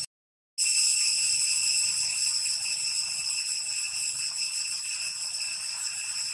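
Steady high-pitched drone of several pitches held together, with no rhythm or change. All sound drops out for about half a second at the start.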